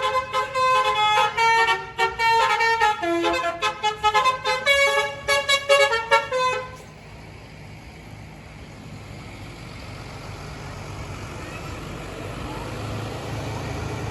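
A tour bus's 'telolet basuri' musical multi-tone horn plays a quick melody of stepped notes, then cuts off suddenly about seven seconds in. After it, a vehicle engine's low rumble slowly grows louder.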